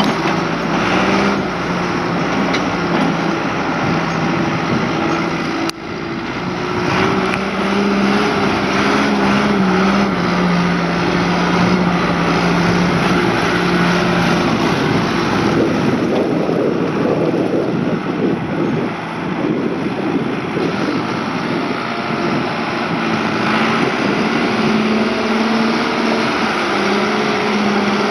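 Diesel engine of a 1996 John Deere 310D backhoe loader running, its pitch rising and falling as the machine is revved and worked. There is a brief break about six seconds in.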